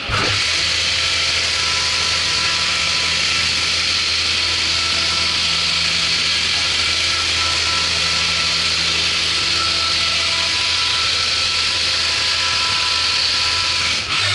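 Haas VF4 CNC vertical mill cutting metal: a spindle and a flood-coolant spray give a steady hiss over a low hum, with a few faint steady tones.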